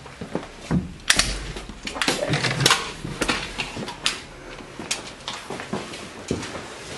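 Handling and movement noise: a dozen or so irregular sharp knocks and clicks with rustling, as the camera is carried about the room.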